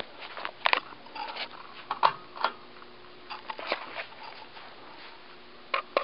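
Casablanca Palisades ceiling fan's direct-drive motor humming faintly at a steady pitch, under a scatter of irregular clicks and taps, the loudest about a second and two seconds in and again near the end.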